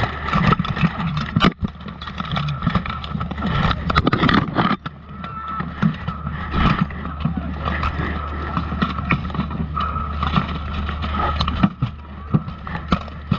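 Steel plate armour, shields and weapons clattering and scraping as armoured fighters grapple and shove at close quarters, with many sharp metallic knocks over a steady low rumble, heard from a camera strapped to a fighter's armour.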